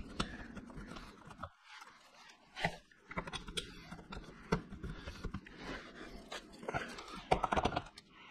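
Scattered light clicks and knocks of a steel frame brace and its bolts being handled and fitted, with a denser run of clicks near the end.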